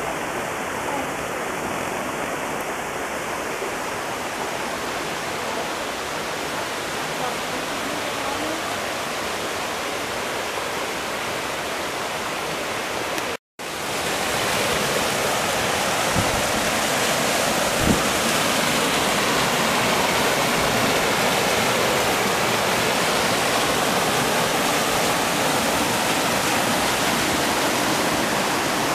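Steady rush of a small river cascading over boulders in a rocky gorge. It cuts out for an instant about halfway through and comes back a little louder.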